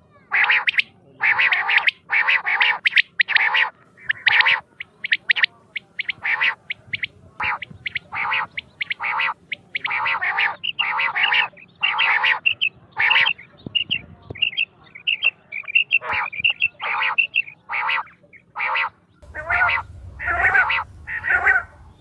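Quail calling over and over in short calls, about two or three a second, with a run of thinner, higher notes about two-thirds of the way through.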